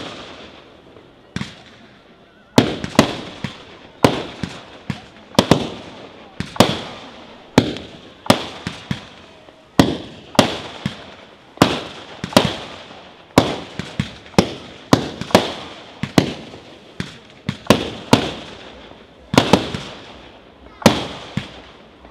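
Aerial fireworks shells bursting one after another, about one to two sharp bangs a second, some in quick pairs, each dying away in a long echo.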